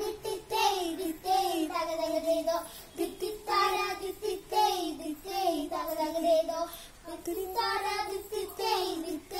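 A child singing a song with no accompaniment, in melodic phrases of a second or two with held notes and short breaks between them.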